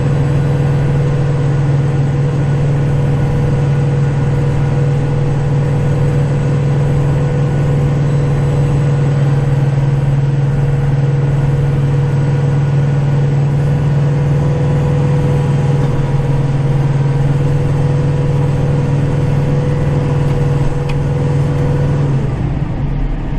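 Kubota tractor engine running at a steady speed, heard from inside the cab. About a second before the end its steady note drops away.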